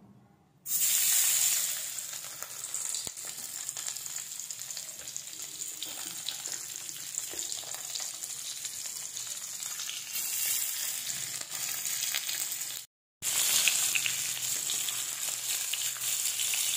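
Turmeric-coated rohu fish steaks frying in hot oil in a kadai. A sudden loud sizzle about a second in as the first piece goes into the oil settles into a steady sizzle and spatter. Near the end it cuts out briefly and comes back loud with the pan full of steaks.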